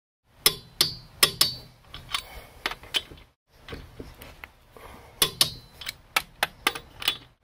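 A click-type torque wrench is tightening the wheel's lug nuts to torque, giving sharp metallic clicks and clinks. They come in an irregular run, stop briefly in the middle, then come in a second run.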